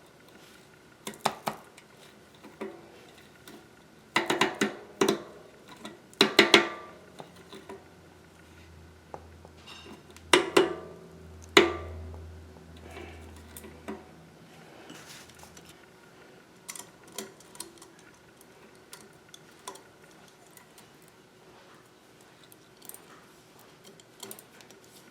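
Metal bicycle parts clinking and clanking with a short ring: cassette cogs and spacers being handled and fitted back onto the rear hub. There are several clusters of clinks in the first dozen seconds, then lighter scattered taps, with a low hum in the middle.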